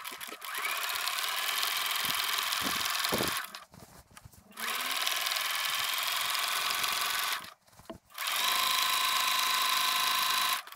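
Bernina 380 sewing machine stitching binding onto a quilt: three runs of steady motor-driven stitching of about three seconds each, with short pauses between, the first speeding up as it starts.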